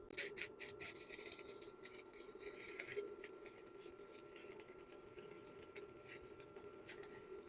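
Stick-welding arc crackling as a Kobe X Super 250 welder drives a 4 mm electrode through 10 mm steel plate to cut it, a fast irregular crackle that is densest in the first few seconds, over a steady low hum.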